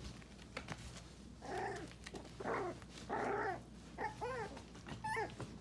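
Nearly five-week-old miniature pinscher puppies vocalizing during play. About a second and a half in come three rough, drawn-out growly calls, followed by a few short, high yips near the end.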